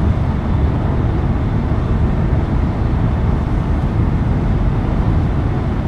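Steady road noise heard from inside a car cabin travelling at highway speed: a continuous low rumble of tyres and engine with a hiss over it.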